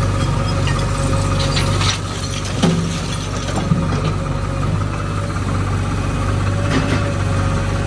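Diesel engine of heavy earthmoving machinery running steadily, with a couple of short knocks about a third of the way in.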